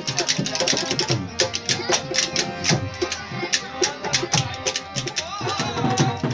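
Rajasthani folk music played live: fast, busy hand-drum beats over a harmonium's held notes.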